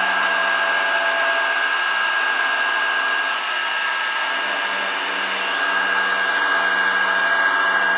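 Light Machines Corporation bench-top CNC mill cutting acrylic with a 1/8-inch two-flute carbide end mill at 5000 rpm, 0.1 inch deep. A steady high whine from the spindle sits over the noise of the cut, a little quieter for a few seconds in the middle.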